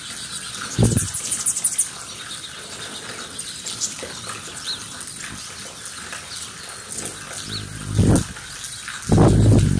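Hummingbird wings humming right up against the microphone in three loud low hums: a short one about a second in, another about eight seconds in and a longer one near the end. Brief high hummingbird chips and chatter are heard in between.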